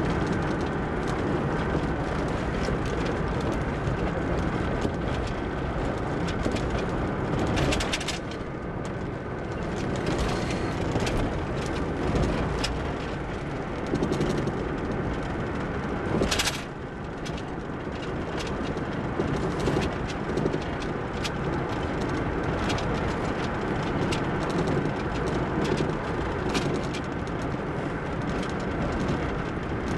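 Steady road and engine noise heard from inside a moving car's cabin, with frequent small clicks and knocks, and two sharper thumps about 8 and 16 seconds in.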